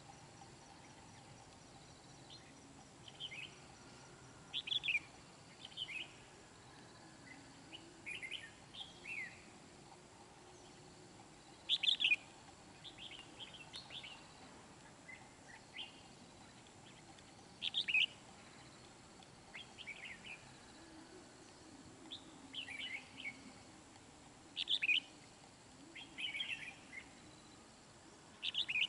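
Red-whiskered bulbuls giving short, bright chirping song phrases every second or two. These are territorial calls traded between a caged decoy bulbul and a wild one challenging it.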